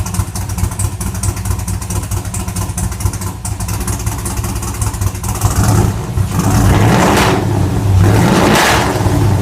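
A 2014 Camaro SS's L99 6.2-litre V8, fitted with a stage 4 VVT cam, idling and then revved twice in the second half. This is its first start on the new cam, and it is misfiring on four cylinders.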